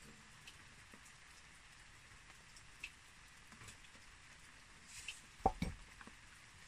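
Faint soil-handling sounds: crumbs of soil and small clods ticking and pattering onto an enamel plate as gloved hands loosen a pine seedling's root ball. A louder knock comes about five and a half seconds in, as a tool lands on the plate.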